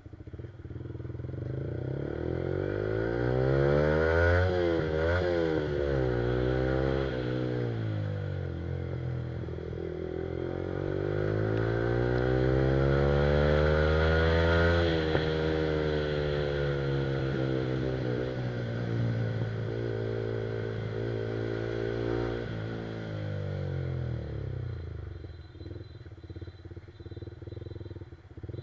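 Yamaha R15's single-cylinder four-stroke engine through an aftermarket Akrapovic exhaust, heard while riding. The engine note rises, jumps up and down quickly a few seconds in, then drops away. It climbs steadily for several seconds to its loudest about halfway through and falls slowly after that, ending lower and uneven.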